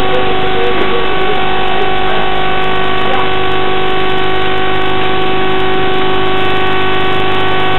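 A loud, steady drone of several held tones that never change in pitch: a sustained synth drone in a horror-film soundtrack.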